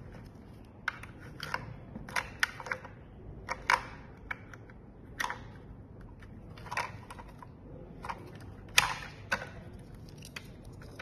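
Irregular hard plastic clicks and taps as the opened plastic chassis of a robot vacuum is handled and worked with a screwdriver and metal probe, the loudest knock about nine seconds in.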